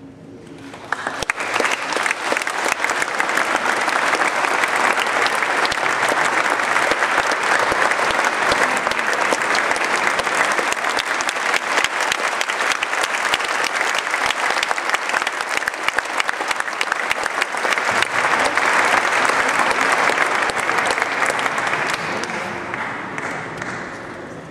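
Audience applauding: dense clapping that starts about a second in, holds steady, and fades away near the end.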